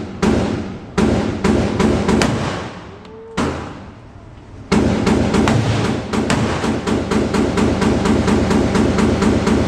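Music with a percussive beat, mixed with gunshots from an indoor shooting range: a few shots in the first couple of seconds, a lull, then a quick, even run of sharp strikes from about halfway in.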